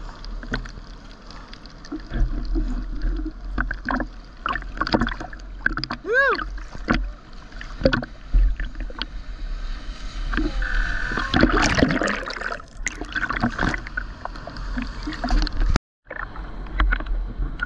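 Water sloshing and slapping against a GoPro Hero 9 held at the surface in its waterproof housing, a jumble of small splashes and gurgles. About six seconds in there is a short rising-and-falling hoot, and just before the end the sound cuts out for a moment.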